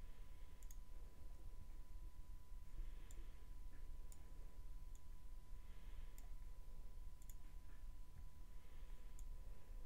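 Faint clicks of a computer mouse, about seven sharp clicks at irregular intervals as colours and gradient stops are picked, over a faint steady hum.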